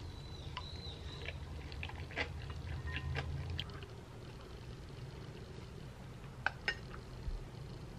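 A wooden spoon clinking against a glass bowl and stirring the soy-milk broth of kongguksu, with a few sharp clinks scattered through. Birds chirp outside in the first half.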